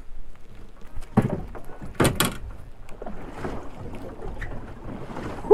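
Landing net being hauled aboard a small boat with a netted plaice in it, knocking and clattering against the side of the boat twice, about one and two seconds in, over a low background rumble.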